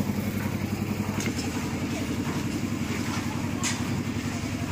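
A small engine running steadily with a fast, even throb, on a concrete-laying site, with a couple of short sharp clicks or scrapes.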